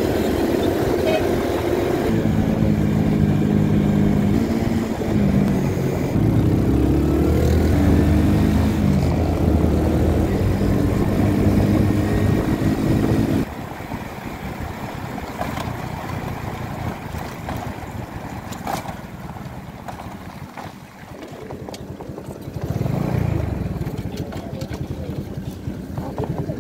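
A 70cc single-cylinder motorcycle engine running under way, its pitch stepping and gliding up and down with the throttle. About halfway through it drops quieter, with road noise and other traffic around it.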